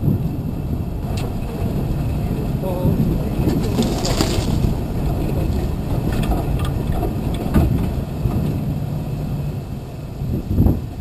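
Vehicle running and rolling over a rough dirt trail, a steady low rumble with wind noise on the microphone. A brief hissing burst about four seconds in and a short thump near the end.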